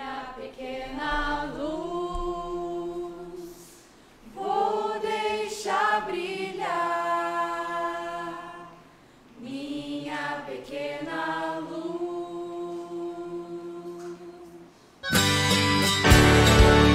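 A woman singing unaccompanied, three slow held phrases with short breaks between them. About fifteen seconds in, a full band with strummed acoustic guitar comes in suddenly and much louder.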